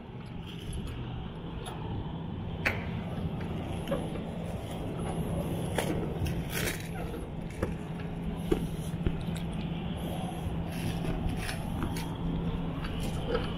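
Scattered metal clicks and scrapes as the tensioner bar and latch of a curtain-side trailer are worked by hand, over a steady low hum.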